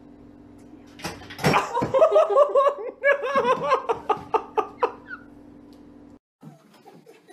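A sharp thud about a second in as the cat jumps down from the range hood, then a person laughing hard in quick repeated bursts for several seconds. A steady low hum runs underneath and cuts off suddenly about six seconds in.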